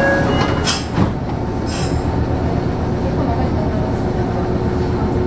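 Meitetsu electric train standing at a station, heard from inside: a steady hum and hiss of its onboard equipment, with short air hisses and a single thump about a second in.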